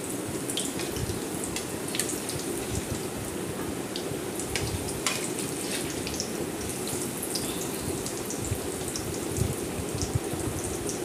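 Potato pakoras in gram-flour batter deep-frying in hot oil in a kadhai: a steady sizzle with scattered crackling pops.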